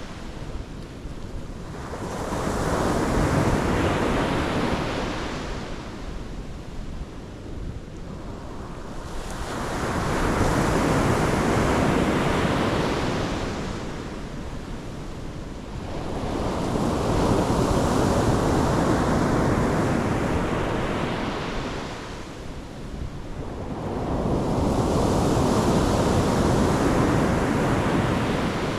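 Pacific Ocean surf breaking on the shore in slow, regular surges: four waves in turn, each swelling for several seconds and then washing back, about one every seven seconds.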